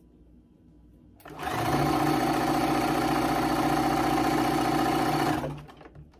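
Bernina electric sewing machine stitching a strip of fabric: it starts about a second in, runs up to a steady speed for about four seconds, then slows and stops near the end.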